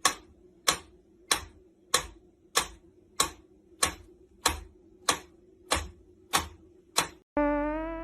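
A steady, even ticking, about three sharp clicks every two seconds, over a faint steady hum. Near the end a held musical tone comes in.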